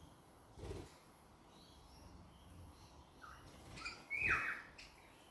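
Pet budgerigars giving a quick cluster of short, high chirps a little past the middle, the loudest one about four seconds in. A dull thump about a second in.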